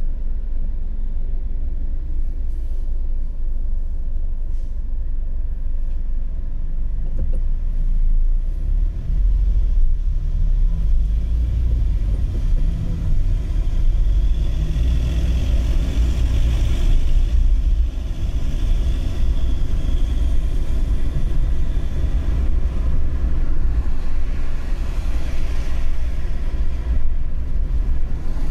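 Car driving at highway speed: a steady low rumble of engine and tyres on the road. A louder hiss swells for several seconds in the middle.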